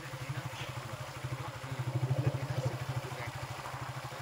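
Motorcycle engine running steadily with a low, fast, even pulsing, heard from on the moving bike.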